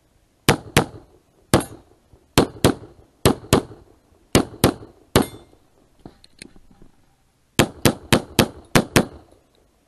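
Semi-automatic pistol firing sixteen sharp shots, mostly as quick double taps on each target. Ten come in the first five seconds, then after a pause of about two seconds six more follow in three fast pairs.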